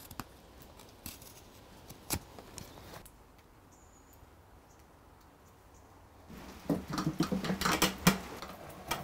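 A carving knife slicing thin shavings from a green-wood spoon in a few faint cuts. After a quiet gap, louder, scraping strokes come in quick succession from about six and a half seconds in: a drawknife shaving wood clamped in a shaving horse.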